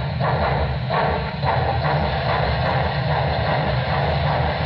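Sound system of a Broadway Limited Imports HO-scale Norfolk and Western Y6 steam locomotive model: steady exhaust chuffs about every half second over a deep, continuous rumble from the Rolling Thunder subwoofer.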